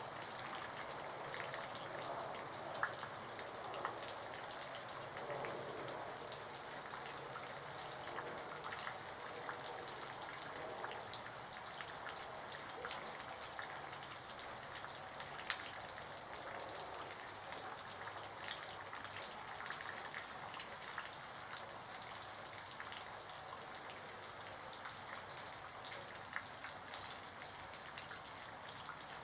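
Steady rain falling, with scattered sharp taps of single drops landing close by.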